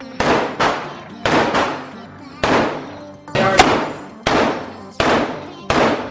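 FN SCAR semi-automatic rifle fired about a dozen times at uneven intervals, some shots in quick pairs, each crack followed by echo in an indoor range booth.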